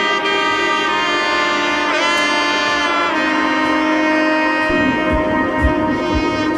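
Background music led by a horn melody with sliding notes; a deep, regular drum beat comes in near the end.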